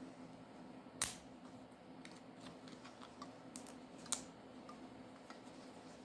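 Small tools and plastic phone parts clicking and tapping as a smartphone is taken apart: two sharp clicks about three seconds apart, with lighter ticks and taps between.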